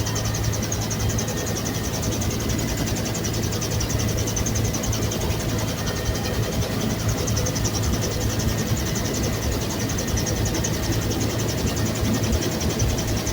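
Bell UH-1 Huey turbine helicopter running steadily, a loud constant drone with a low hum and a rapid, even pulsing from the rotor.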